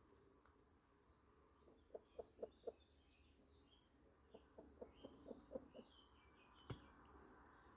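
A hen clucking softly in two short runs, four clucks and then about seven, with small birds chirping faintly in the background and a single sharp click near the end.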